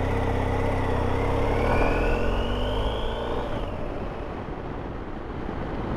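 Motorcycle engine heard from the rider's seat, pulling away and accelerating, its whine rising in pitch for a couple of seconds. About three and a half seconds in, the throttle eases off, and the engine note drops back under rushing wind noise.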